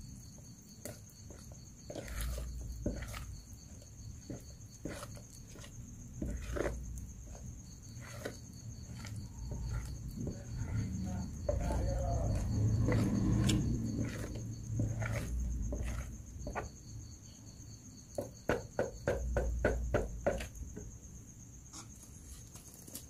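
A metal spoon stirring thin rice-flour and coconut-milk batter in a plastic tub, with scattered clicks against the tub and a quick run of taps near the end. A steady high insect trill runs in the background.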